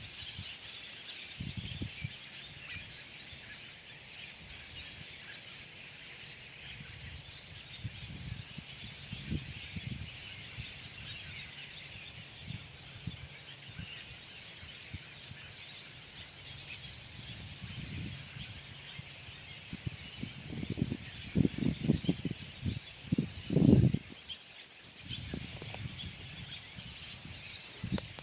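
A flock of small birds chirping and calling continuously, many short overlapping chirps at once. Several low rumbling bumps come through about two-thirds of the way in and are the loudest sounds.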